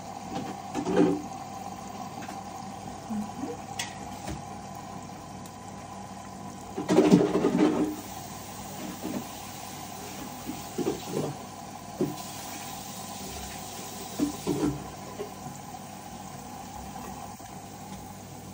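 Front-loading washing machine drum turning a wet load of laundry: water sloshing and splashing in the drum over a steady machine hum, with the loudest surge of sloshing about seven seconds in.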